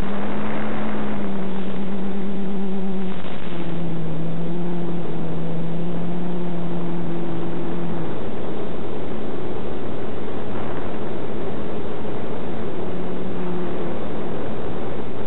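Quadcopter's DJI E300 2212 920kv motors and 9x4 propellers humming in flight, under a steady rush of wind noise. The hum drops slightly in pitch about three seconds in, fades after about eight seconds, and comes back briefly near the end.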